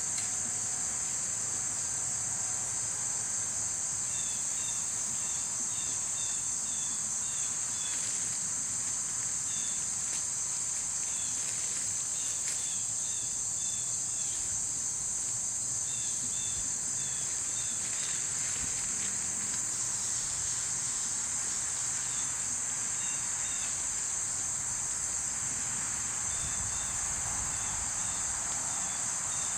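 A steady, high-pitched chorus of insects trilling without a break, with short high chirps coming and going.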